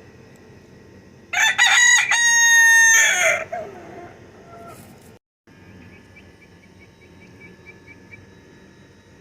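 Rooster crowing once, a loud call of about two seconds that falls away at its end. A few seconds later there is a string of faint, quick, high chirps.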